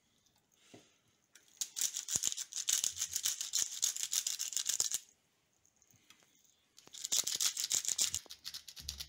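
Twist-top pepper grinder grinding peppercorns over the chicken: two long runs of fast crunching clicks. The first lasts about three seconds, starting after a second and a half, and the second starts about seven seconds in.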